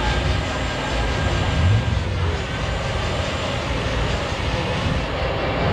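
Scania truck's diesel engine running hard in a burnout, tyres spinning, with a loud, steady, noisy rush and a brief swell in level about two seconds in.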